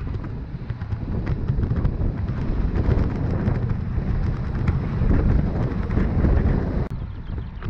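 Wind buffeting the microphone of a camera on a moving road bike: a steady low rumble with road and tyre noise and scattered short clicks. It drops out and changes abruptly about seven seconds in.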